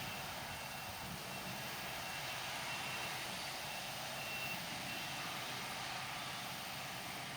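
A vehicle's reversing alarm beeping faintly with a high single tone, the beeps stopping about five seconds in, over a steady noise of distant machinery.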